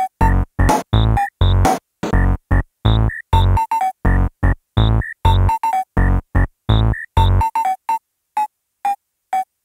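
Electronic background music: a synthesizer plays short, evenly spaced chopped chords over a deep bass pulse. About three-quarters of the way through the bass drops out, leaving a few sparse higher notes.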